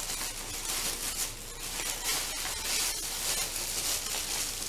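Thin plastic shopping bag rustling and crinkling unevenly as hands rummage inside it, close to a sensitive microphone.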